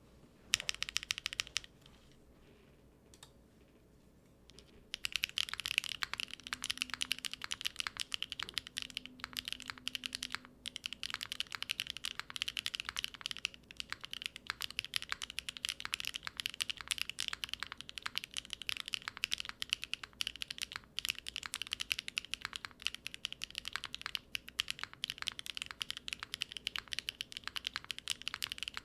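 Typing on a Neo70 mechanical keyboard with factory-lubed HMX Hibiscus linear switches, an aluminium plate, no foam and GMK keycaps. A short burst of keystrokes is followed by a pause of a few seconds, then fast, continuous typing from about five seconds in.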